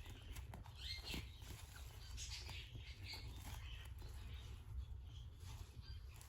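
Kittens' small paws pattering and scratching on a surface in quiet play, a scatter of light clicks and rustles over a steady low hum.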